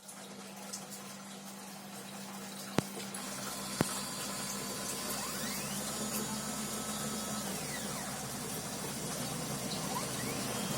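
3040 desktop CNC router running: a steady motor hum and whir that gets louder about three seconds in, with two sharp clicks around then and faint whines that rise and fall in pitch.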